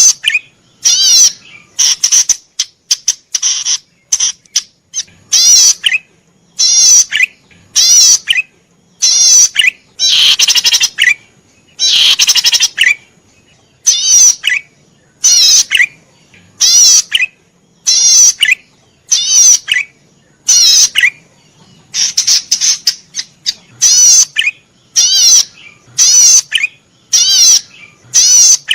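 A cici padi merah (a cisticola) singing persistently: a short buzzy, rapidly trilled phrase ending in a sharp lower note, repeated over and over about once every second and a half.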